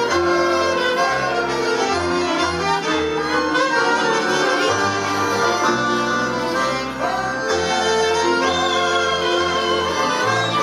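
Romanian folk dance music played by an instrumental band, with a steady bass line stepping from note to note under a busy melody.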